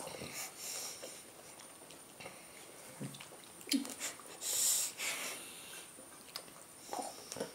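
Quiet chewing and mouth noises of someone eating a tomato, with scattered small clicks and a short airy hiss about halfway through.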